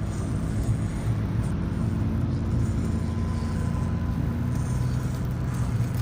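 The small electric motor and gear drive of an Axial SCX24 1/24-scale RC crawler running steadily as it crawls.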